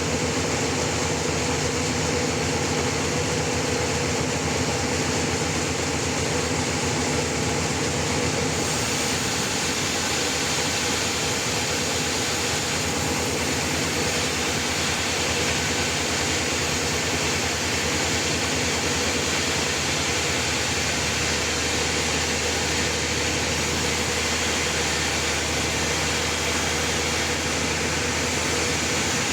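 Sawmill running steadily: a constant, dense mechanical noise with a few steady hums, typical of the saw cutting through a trembesi log.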